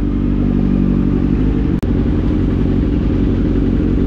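Kawasaki Z900's inline-four engine running steadily at low revs, broken by one very short gap in the sound about two seconds in.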